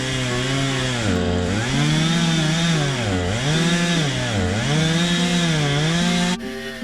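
Chainsaw engine running while cutting trees, its pitch dropping and recovering about three times. It cuts off suddenly near the end, where acoustic guitar music starts.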